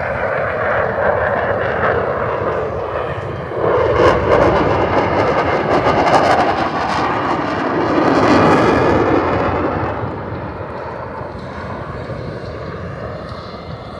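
Jet noise from an F/A-18 Super Hornet's twin General Electric F414 turbofans as it flies by. The steady roar swells suddenly about three and a half seconds in, stays loud to about nine seconds, then fades away.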